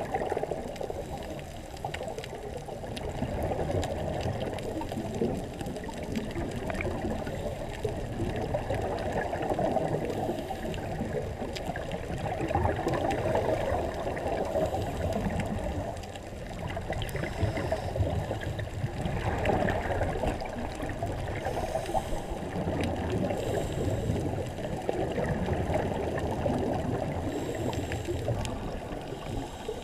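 Muffled underwater bubbling and gurgling from a scuba dive, swelling every few seconds in the way a diver's exhaled regulator bubbles do.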